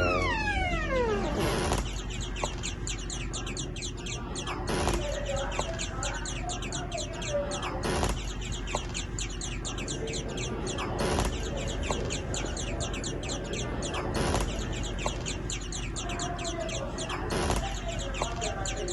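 Bird calls, clucking and rapid high chirping, over a short sound clip that repeats about every three seconds.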